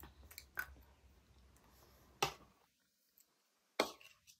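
Scattered sharp clicks and taps from eating with a small spoon and handling sweets: a few light clicks in the first second, then two louder ones, a little past two seconds and just before the end.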